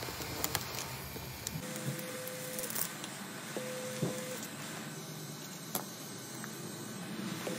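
A taped blade scraping shattered back glass and adhesive off an iPhone 12 Pro's frame, with scattered sharp clicks and crackles over a steady hiss.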